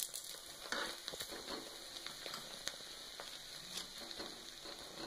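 Ghee sizzling on a paratha frying on a hot tawa as it is spread over the bread with a spoon: a steady hiss with scattered light crackles and clicks.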